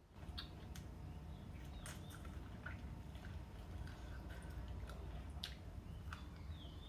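Close-up eating sounds: wet chewing and smacking with scattered small clicks, over a steady low rumble that starts and stops suddenly. A few short high squeaks are mixed in.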